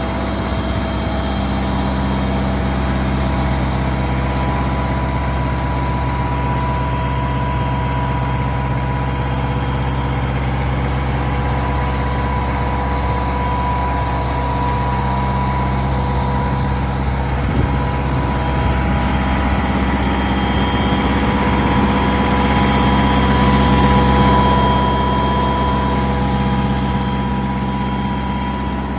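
Wisconsin W4-1770 four-cylinder air-cooled gasoline engine on a Meco circle-cut concrete saw, running steadily at an even speed. It gets a little louder for a few seconds past the middle.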